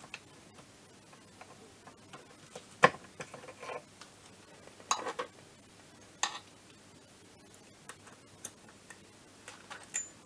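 Scattered light metallic clicks and taps of small engine parts and tools being handled against a scooter engine's casing during reassembly. The sharpest knock comes about three seconds in, with a few more around five and six seconds.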